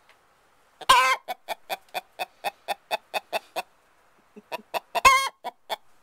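Hen on her nest clucking in agitation: a loud squawk about a second in, then a run of quick clucks at about four a second, and a second squawk among more clucks near the end.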